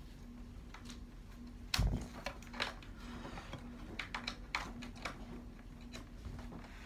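Scattered clicks and knocks from hands handling a keyboard's USB cable and plug, with one louder thump about two seconds in and a run of small clicks after it. A faint steady hum underneath.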